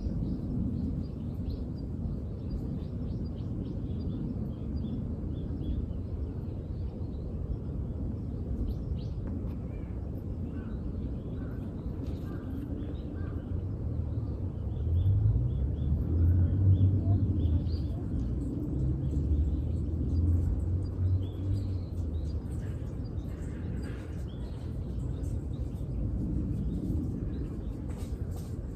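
Outdoor ambience of small birds chirping faintly here and there over a steady low rumble, which grows louder for several seconds midway.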